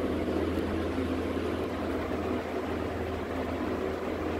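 A steady machine hum with an even rushing noise, unchanging throughout, with no distinct knocks or calls standing out.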